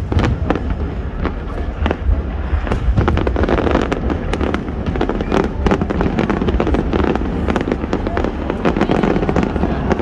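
Aerial fireworks bursting in quick succession: many sharp bangs and crackles over a continuous low rumble, with no pause.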